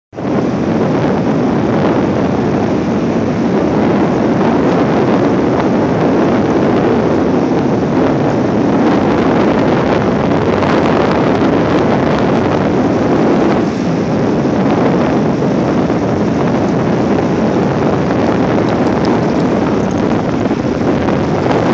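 Loud, steady wind buffeting a phone's microphone on an open beach, over the wash of ocean surf.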